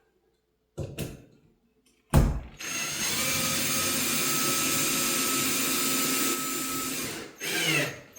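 A short knock, then a louder thud about two seconds in. Then a power drill drives a screw into the door knob hardware, running steadily for about four and a half seconds before stopping.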